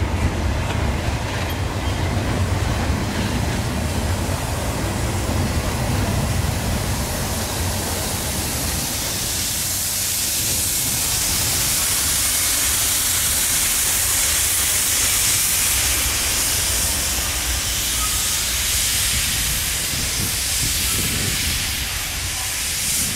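Long freight train of empty wagons rolling past, its wheels giving a steady low rumble on the rails. A high hissing rises from about nine seconds in and carries on over the rumble.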